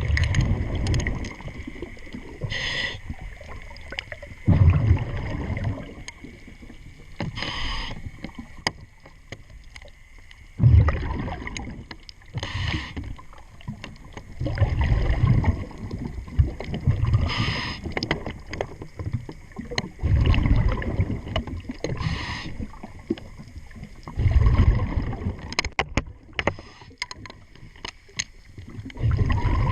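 Scuba diver breathing through a regulator underwater: low bubbling exhalations alternating with short hissing inhalations, about one breath every five seconds.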